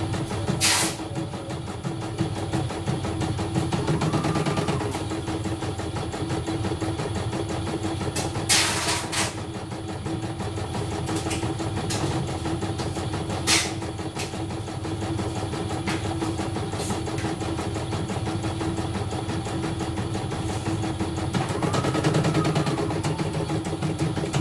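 CNY E900 computerized embroidery machine stitching a design, running with a fast, steady mechanical rhythm on a test run after being repaired from a completely dead fault. A few sharp clicks come through, near the start and around eight and thirteen seconds in, and a brief rising-and-falling whine is heard twice.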